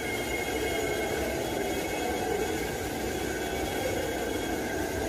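Orbital sander running steadily, sanding body filler, with a faint high whine over its even hiss.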